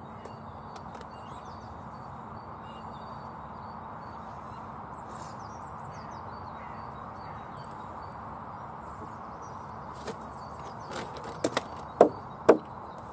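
Wooden knocks from timber battens being handled on a wooden shed base: a few short sharp knocks in the last few seconds, the two loudest about half a second apart, over a steady background noise.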